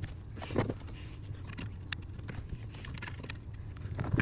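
Scattered light clicks, taps and scrapes of hands and tools refitting the steering column trim, over a steady low hum.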